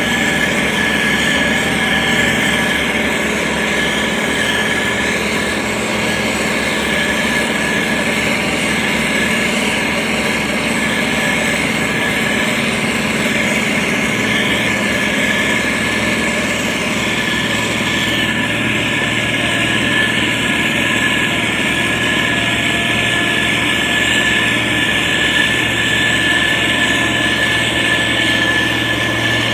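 SANY STG190C-8S motor grader's diesel engine running steadily under work, with a steady high whine over the engine note.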